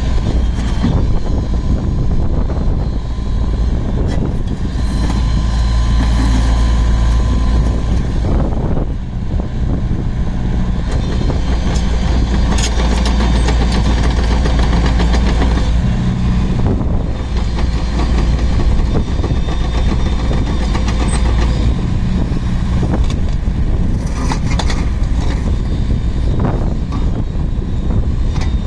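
Diesel engine of a Komatsu PC95 midi excavator running, its note rising and dropping several times, with a few short knocks.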